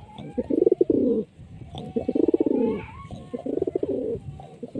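Pigeon cooing: low, rolling coos in repeated phrases about a second long, with short pauses between them.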